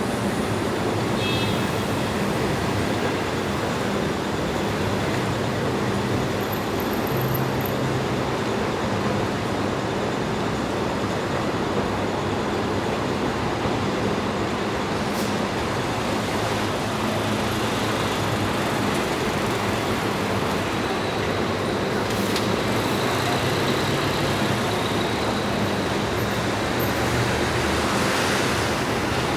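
Heavy rush-hour city traffic: a steady wash of engine and tyre noise from passing cars and buses, with engine hums coming and going.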